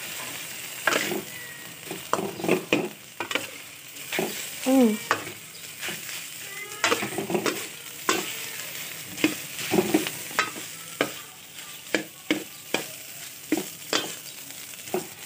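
Metal spatula scraping and clattering irregularly against a stainless steel wok while stirring fried rice, over the steady hiss of the rice frying.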